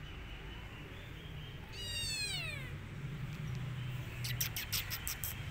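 A kitten meows once: a single high call, about a second long, falling in pitch about two seconds in. Near the end comes a quick run of about seven sharp, high ticks.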